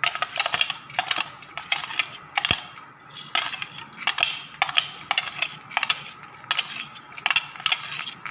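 Mustard seeds and urad dal spluttering in hot sesame oil in a pan for the tempering: many sharp, irregular pops and crackles over a steady sizzle.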